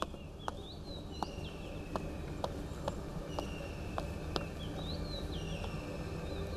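Footsteps on stone paving, a sharp click about every half second, with birds chirping. A low ambient drone slowly swells in underneath, growing louder toward the end.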